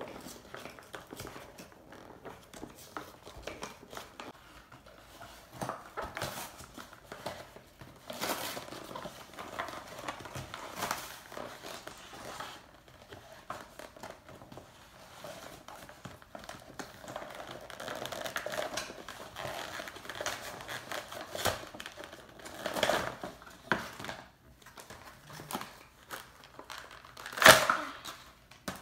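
Clear plastic and cardboard toy packaging being opened and handled: irregular crinkling and crackling, with the loudest crackle near the end as the plush toy comes out of the box.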